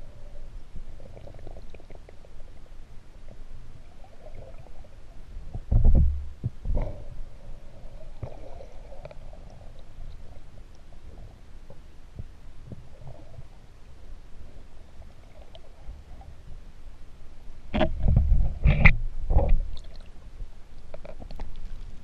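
Muffled underwater sound picked up by a camera held below the water: a steady low rumble of moving water with a few dull knocks about six seconds in, and a louder run of knocks and splashing around eighteen to twenty seconds in.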